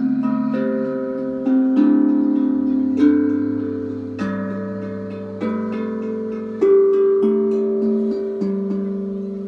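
A plucked string instrument playing slow, calm melodic notes, each picked note left to ring on under the next. New notes come about every second.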